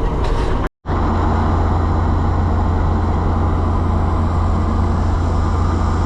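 International Harvester 1460 combine running steadily while harvesting soybeans, a loud even machine drone. There is a split-second gap under a second in.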